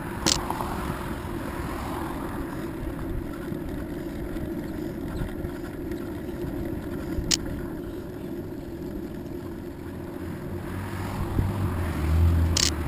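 Steady low rumble of wind and tyres from a bicycle rolling along an asphalt trail, with a few sharp clicks, growing louder near the end.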